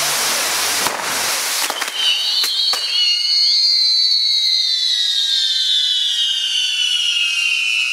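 Castillo fireworks going off: a dense hiss of gushing sparks broken by a few sharp cracks, then from about two seconds in a high, steady whistle that slowly falls in pitch.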